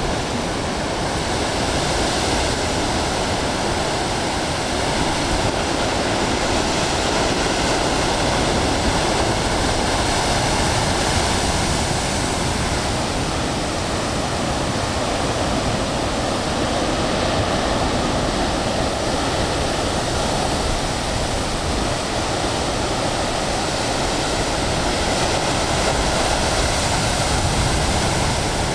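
Heavy ocean surf, with waves near 25 ft, breaking over a rocky shore and throwing up spray. It makes a loud, continuous wash of noise in which the separate breakers blend together.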